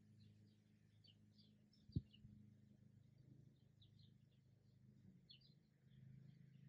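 Faint, quick, high bird chirps in short runs over a low steady hum, with one sharp thump about two seconds in.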